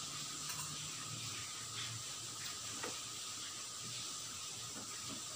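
Quiet eating sounds at a table: soft chewing and a few faint clicks of a spoon against a bowl, over a steady background hiss.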